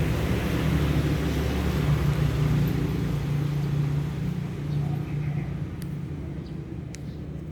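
A motor vehicle's engine rumble, growing louder over the first few seconds, then fading away as it passes.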